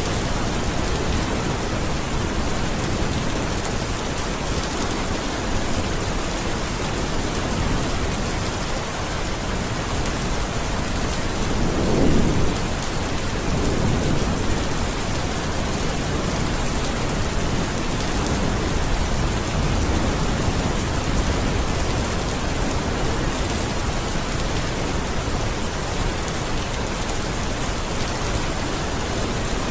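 Steady heavy rain falling, with a low roll of thunder about twelve seconds in and a smaller one just after.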